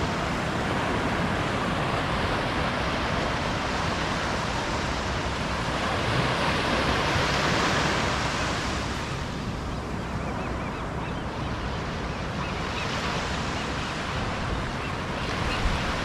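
Ocean surf washing onto a shore, a steady rush that swells about halfway through and then eases.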